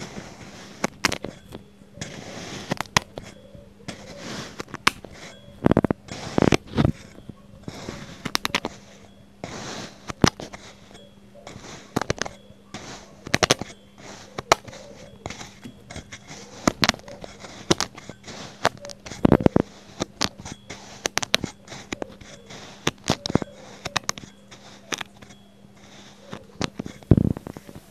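Metal fork pressing into and breaking up packed kinetic sand, making many irregular crunches and crackles, a few of them much louder than the rest.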